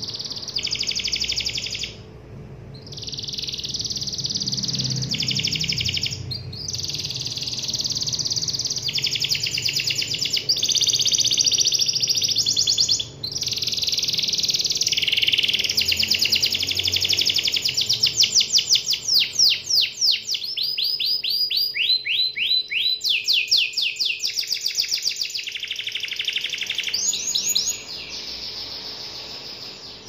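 Domestic canary singing a long, continuous song of fast rolling trills, breaking off briefly about two seconds and thirteen seconds in. Past the middle the song changes to runs of separate, quickly repeated falling notes before the rolls return near the end.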